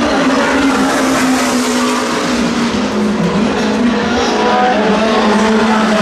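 Peugeot 9X8 Le Mans Hypercars' twin-turbocharged V6 engines running at racing speed, the pitch dipping briefly about halfway through and settling a little lower near the end.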